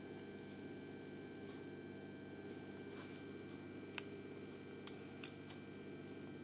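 Steady low hum with a few faint clicks and taps of small plastic toy figures handled between the fingers, the sharpest click about four seconds in.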